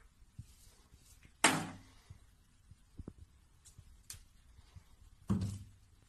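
Plastic toiletry bottles knocked about and tipped over by a cat's paw, clunking on a bathroom shelf. The loudest clunk comes about one and a half seconds in and another near the end, with light taps between.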